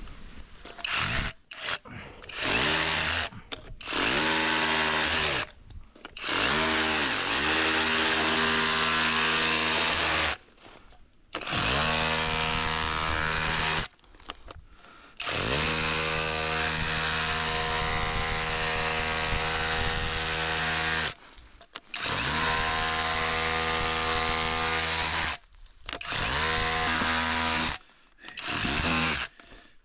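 Handheld electric power tool run in about eight bursts of one to six seconds. Its motor speeds up at each start and winds down at each stop, with short pauses between.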